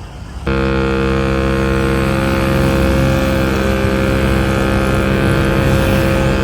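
A vehicle engine running at a steady, unchanging pitch, starting about half a second in.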